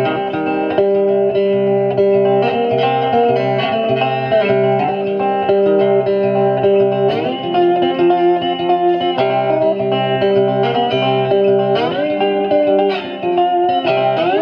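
Background music: a guitar-led instrumental track with steady held notes and chord changes.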